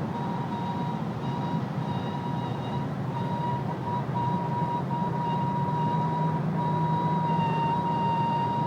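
A 2010 Mercedes-Benz GLK 350 giving off a steady high-pitched whine over a low running rumble. This is the noise the owner treats as a problem. The whine flickers on and off for the first few seconds, then holds steady.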